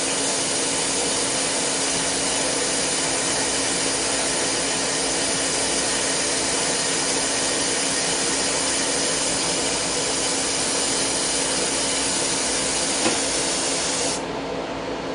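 Lathe dry-boring alloy steel with a boring bar: a steady hiss of the insert cutting inside the spinning bore over the machine's steady hum. About fourteen seconds in the high hiss drops away as the cut ends and the bar comes out of the bore, while the lathe keeps running.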